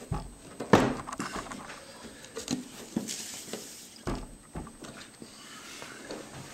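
Wooden cabinet of a vintage Westinghouse tube radio being turned around on a table: a series of knocks and bumps, the loudest just under a second in, with a brief scrape about three seconds in.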